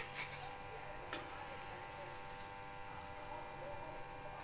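Low, steady background hum with a faint haze of noise, and a single light click about a second in.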